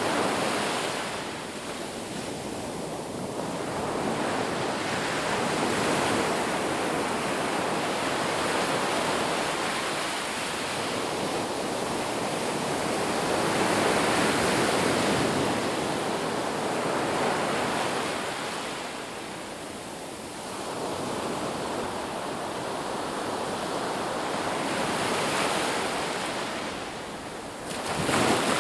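Ocean surf washing onto a beach, the roar of the waves swelling and easing every several seconds, with one sharper surge near the end.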